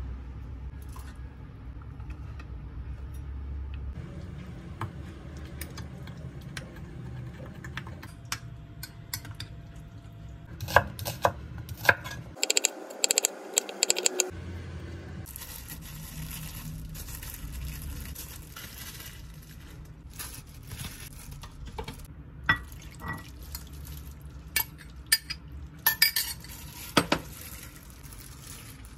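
Kitchen food-prep sounds: a metal spoon stirring and clinking in a glass measuring cup of sauce. Around the middle, a knife slices an onion on a wooden cutting board in a quick run of knocks. Near the end, a gloved hand mixes marinated pork in a glass bowl, with scattered clinks.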